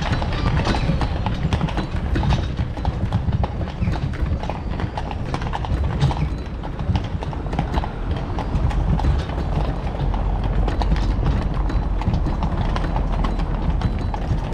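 Carriage horse's hooves clip-clopping on cobblestones in a continuous run of sharp knocks, over a steady low rumble.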